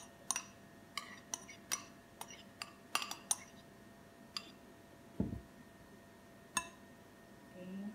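A metal spoon clinking against a small bowl as shredded carrots are scraped out of it into a large mixing bowl: a quick run of sharp clinks in the first few seconds, then one more clink later. A single dull thump a little after five seconds.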